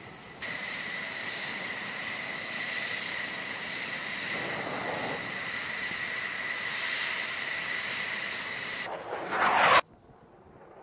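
F-16 Fighting Falcon's F110 turbofan running at taxi power: a steady high whistling whine over loud rushing jet noise. Near the end the jet noise briefly swells louder, then cuts off sharply to a quieter jet rush.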